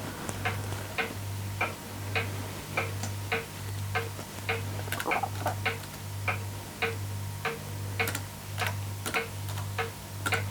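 Steady, even ticking, a little under two ticks a second, with a low hum that pulses on and off in time with it.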